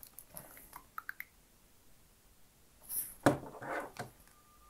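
Faint clicks of hands handling a plastic LEGO robot and its motor, with a couple of brief louder handling sounds about three seconds in.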